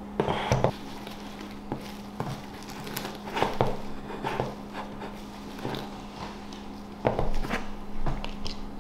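Plastic cling wrap crinkling and rustling as it is wound around the base of a deer's antlers, with scattered light knocks of the skull and antlers being handled on a table, over a steady low hum.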